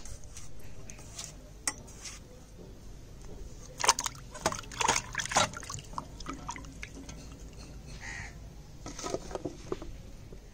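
Vegetables being cut and handled: scattered clicks and clatter of a blade and pieces, loudest in a run of sharp knocks about four to five and a half seconds in and again around nine seconds.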